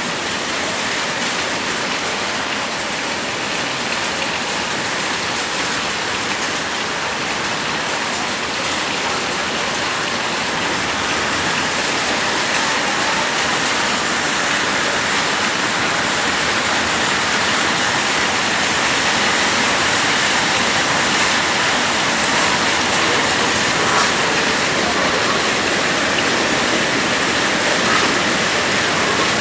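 Heavy rain pouring down in a steady, dense hiss that slowly grows louder.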